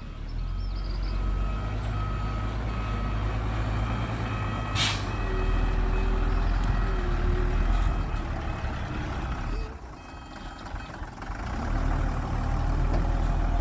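Dump truck's diesel engine running, with its reversing alarm beeping over the first five seconds. A brief sharp hiss comes about five seconds in. The engine eases off near ten seconds, then picks up again.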